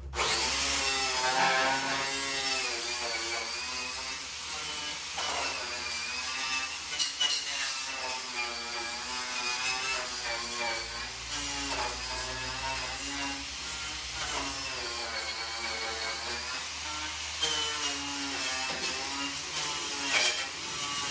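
Electric drill cutting out spot welds in a steel car body panel. The motor's pitch wavers up and down as the bit bites and eases off, with a few brief catches and breaks.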